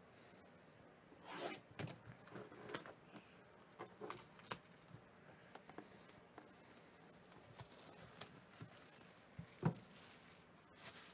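Plastic shrink wrap crinkling and tearing in scattered crackles as it is peeled off a cardboard trading-card box. Near the end comes a single thump as the box is set down.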